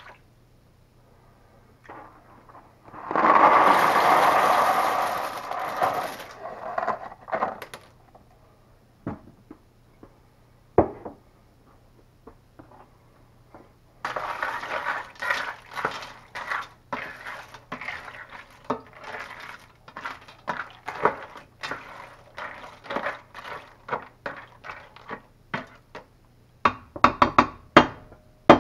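Dry penne pasta poured into a stainless steel skillet, a loud rushing rattle for about three seconds, followed later by a ladle stirring the pasta around the pan in a long run of quick clicks and scrapes, with a few sharper knocks near the end.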